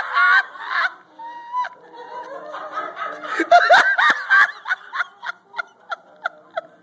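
A person laughing uncontrollably and high-pitched, the ecstatic 'holy laughter' of a charismatic revival meeting, in bursts that swell loudest midway and then break into short hooting pulses about three a second.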